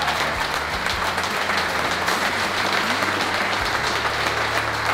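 A crowd of people clapping steadily. A low steady hum comes in about three and a half seconds in.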